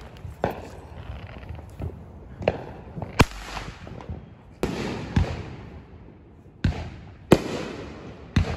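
Fireworks bursting in the sky: about nine sharp bangs in irregular succession, the two loudest about three and seven seconds in, each trailing off in an echoing rumble.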